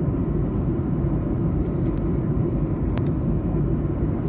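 Steady low roar of engine and airflow noise inside the cabin of a Boeing 737-800 in flight on its descent. A faint click about three seconds in.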